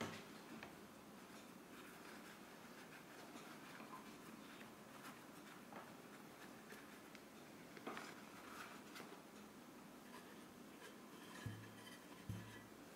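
Near silence, with faint rustling and small clicks from gloved hands handling a rotary tool, and two short low hums near the end.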